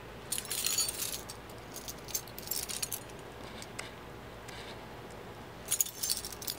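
A bunch of keys jangling in hand in a few short bursts.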